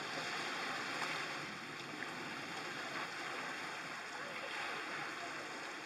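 Small sea waves washing in over sand and around boulders at the water's edge: a steady rush of surf.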